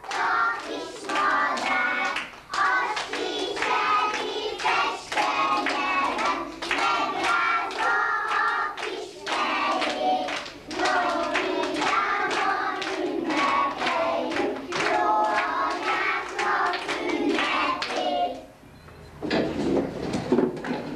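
A group of kindergarten children singing a song together in Hungarian, with rhythmic hand clapping along. The singing stops a little over 18 seconds in.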